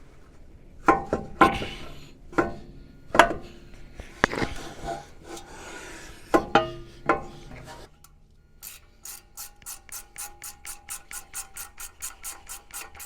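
Metal knocks and clanks with brief ringing as a brake caliper is set over the front disc rotor, then, from about eight seconds in, a ratchet wrench clicking evenly at about four to five clicks a second as the caliper bolts are run in.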